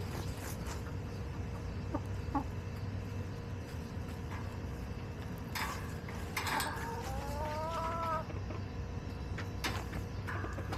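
Backyard chickens clucking, with one drawn-out rising call about seven seconds in and a few short sharp taps, over a steady low rumble.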